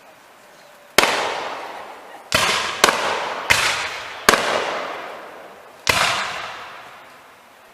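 Black-powder muskets firing six scattered shots at irregular intervals, each shot echoing away over about a second.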